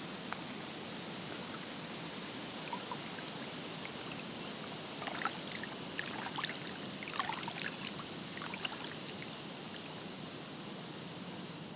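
Water at a lake's edge, a steady rush of lapping and trickling water, with a run of small splashes and drips around the middle.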